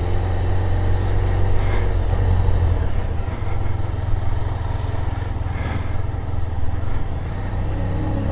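Motorcycle engine idling steadily with the bike at a standstill in traffic.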